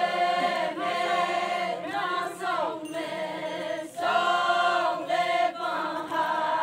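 A group of women singing a Konyak Naga folk song together in unison, in long held phrases with short breaks between them, as they dance in a circle.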